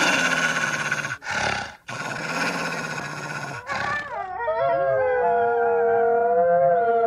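Wolves howling together. A dense chorus of overlapping howls is cut by two brief dropouts in the first two seconds. From about four seconds in, two long, held howls sound at different pitches, wavering slightly.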